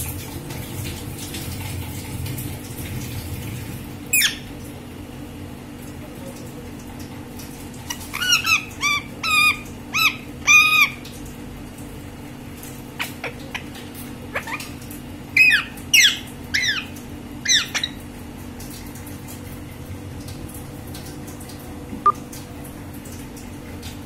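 Green parakeet calling in short bouts: a single call about four seconds in, a quick run of about six rising-and-falling calls from about eight to eleven seconds, and a few falling calls from about fifteen to eighteen seconds. A steady low hum runs underneath, and there is one sharp click near the end.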